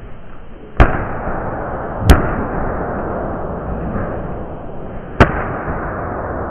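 Three sharp, loud smacks of boxing gloves landing on hybrid focus-pad/striking-stick mitts, about a second in, two seconds in and five seconds in, over a steady background noise.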